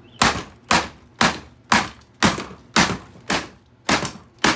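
A hammer striking the hard plastic body of a Dyson Ball vacuum cleaner again and again: about nine sharp knocks at a steady pace of roughly two a second.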